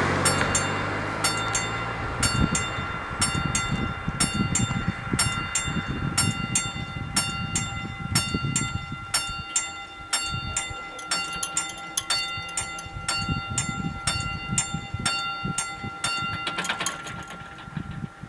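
Level-crossing warning bells ringing in a steady run of sharp metallic strokes with a ringing tone, sounding while the barriers lower to warn of an approaching train. They stop about a second and a half before the end, once the barriers are down, followed by a short hiss. A passing car's engine fades away in the first couple of seconds.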